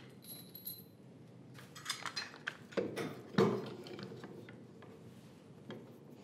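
Light clicks and knocks of a metal swivel castor being handled and set against the end of a pine workbench leg, the loudest knock about three and a half seconds in.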